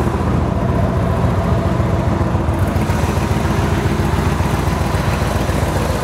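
1970 Chevrolet Corvette's numbers-matching 350 cubic-inch small-block V8, fitted with side pipes, idling steadily.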